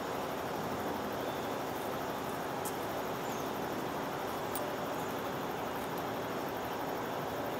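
Steady outdoor background noise, an even rushing hiss, with a couple of faint clicks.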